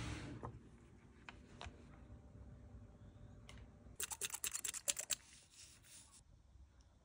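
Faint handling sounds of food being arranged on a serving board: a soft knock at the start and a few light clicks, then about four seconds in a quick run of clicking glugs lasting about a second as olive oil is poured from a bottle over olives and feta.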